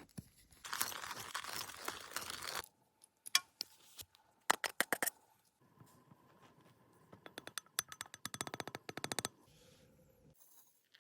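Coffee beans rattling and scraping inside a small wire-mesh sesame roaster as it is shaken over a fire. There is a rustling stretch first, then scattered clicks, then a fast even rattle near the end.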